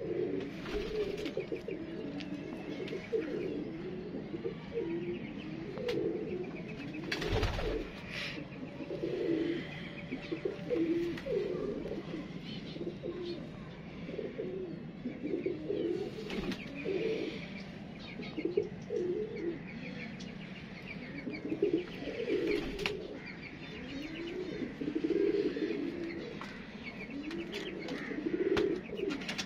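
Pigeons cooing over and over in low, repeated phrases, with small birds chirping faintly behind. There is a single thump about seven seconds in.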